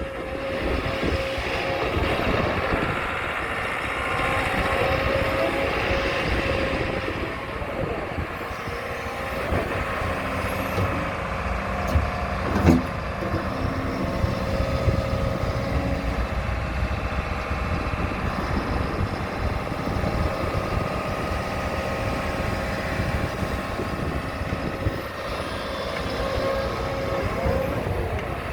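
JCB 220X tracked excavator's 4.8-litre four-cylinder ecoMax diesel running with a steady hydraulic whine, the engine note swelling and easing as the machine works. A single sharp knock about twelve seconds in.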